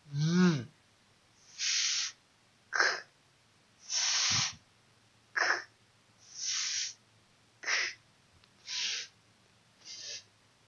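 A woman's voice sounding out isolated consonant sounds one after another, about one a second. Short hissing and puffing sounds alternate with brief voiced ones that fall in pitch.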